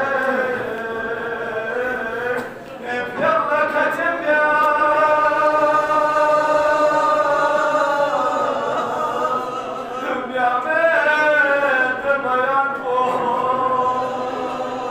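A man chanting a Balti-language marsiya, a Shia mourning elegy, through a microphone. He holds long drawn-out notes with wavering ornamented pitch, taking a brief breath about two and a half seconds in.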